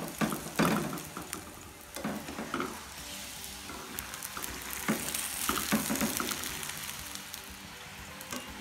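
Paratha frying in a little oil in a nonstick pan, a steady sizzle, with scrapes and taps as a steel spatula presses and moves the bread against the pan.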